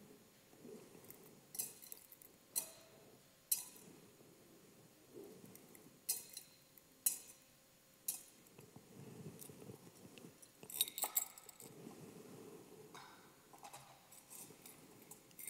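Quiet room with scattered sharp small clicks and clinks, roughly one a second with a short cluster near the end, over faint low rustling.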